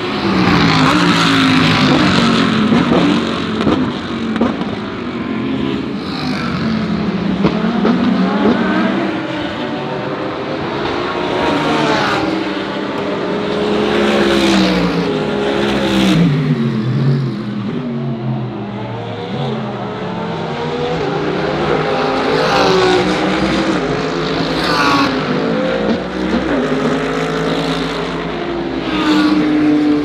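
GT3 race cars going by one after another, their engines revving up and dropping back through gear changes, with several short sharp cracks along the way.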